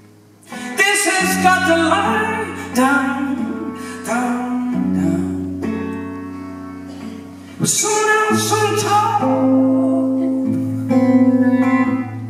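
A man singing with his own acoustic guitar accompaniment. After a quiet start the guitar comes in hard about half a second in, and there is another loud strum a little past halfway.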